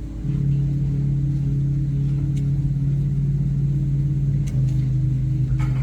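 Organ holding a low sustained chord under the pause, its bass note shifting slightly about four and a half seconds in.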